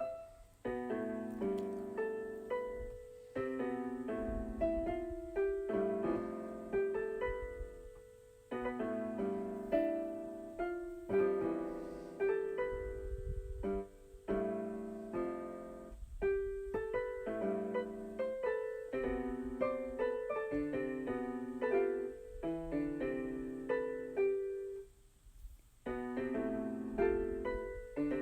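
Keyboard music with a piano sound: single notes and chords played in short phrases, with brief pauses between them.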